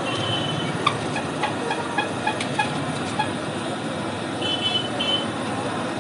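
Fuluri batter fritters deep-frying in hot oil in an iron kadai: a steady sizzle with scattered sharp pops. Short high-pitched toots sound twice from the street, near the start and again past the middle.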